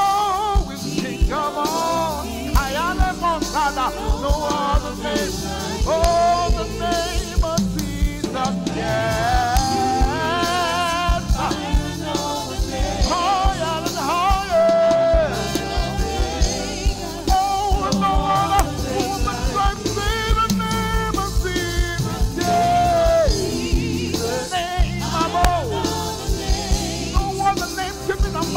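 Live gospel praise music from a worship band, with a singer's vocal runs sliding and wavering in pitch over a steady beat and bass.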